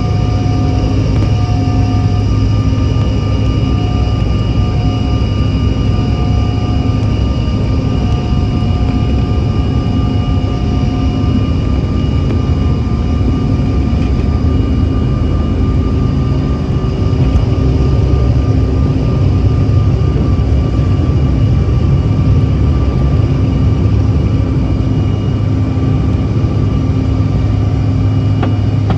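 Cabin noise of a CRJ-700 during takeoff: its two rear-mounted General Electric CF34 turbofans running at high power, a steady loud rumble with several steady whining tones over it.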